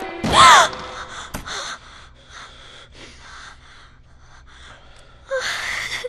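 A woman's sharp, startled gasp about half a second in, falling in pitch, followed by quieter heavy breaths. Another breathy vocal burst comes near the end.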